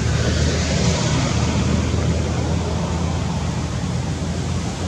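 Steady outdoor background noise: a low rumble with an even hiss over it and no distinct sounds standing out.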